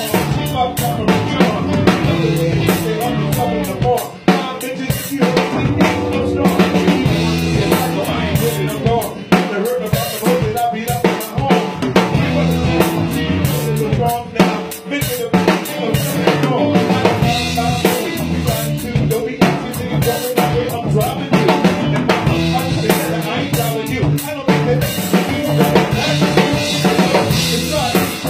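A band jamming live: a drum kit plays a steady groove of bass drum, snare and cymbal hits, over sustained pitched instruments.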